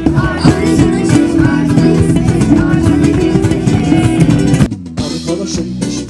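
Band music with drum kit and guitar, dense and loud, dropping suddenly to a sparser, quieter passage a little before the end.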